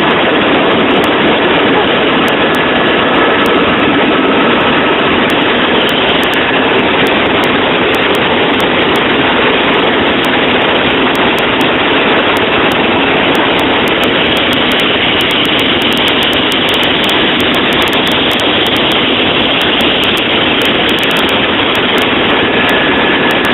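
Helicopter cabin noise in flight: a loud, steady, even rushing drone that does not change.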